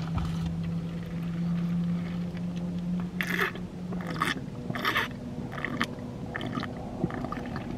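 Eating and drinking sounds: chewing, then from about three seconds in a run of short sips of lemonade through a straw with gulping swallows, over a low steady hum.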